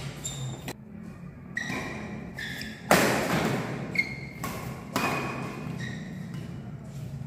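Badminton rackets striking a shuttlecock in a fast doubles rally, sharp hits about once a second with the loudest near the middle, and short squeaks of shoes on the court floor in between.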